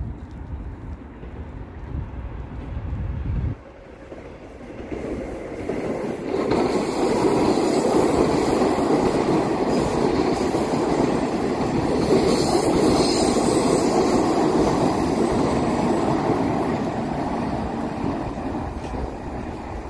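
Moscow Metro train passing on an open-air surface track, its wheels running on the rails. The noise swells about six seconds in, stays loud for roughly ten seconds and fades as the train moves away.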